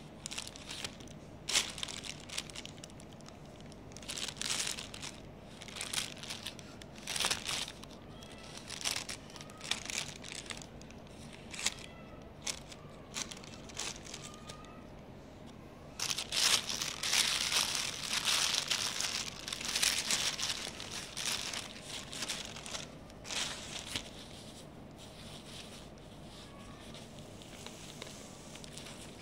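Grey plastic courier mailer bag crinkling and rustling in irregular bursts as it is cut open with scissors and handled, busiest a little past halfway; near the end the white foam wrap of the contents rustles.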